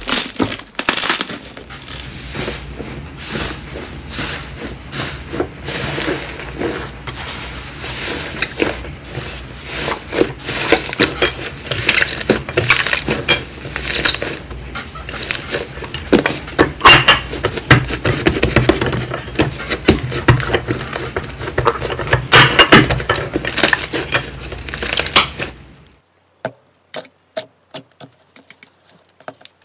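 Slime being squished and pressed, giving a dense run of crackling clicks and pops. About 26 seconds in the sound cuts to a quieter stretch of sparse, separate clicks.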